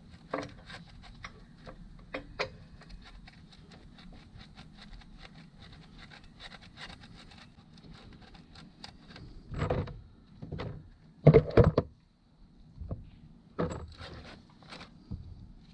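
Socket ratchet clicking in a long run of quick strokes as a bolt is run into the engine's front timing cover, followed by several louder knocks and clunks of metal parts and tools being handled.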